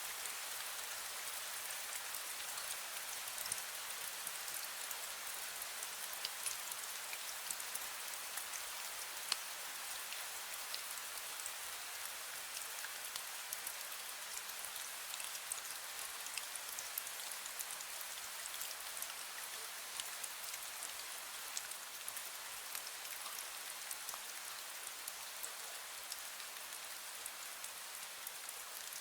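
Steady fine drizzle: an even hiss of rain with many small raindrop ticks scattered through it.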